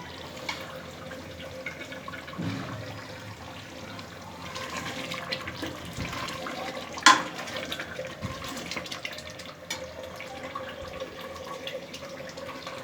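Steady watery, liquid noise with scattered small clicks, and one sharp clink about seven seconds in.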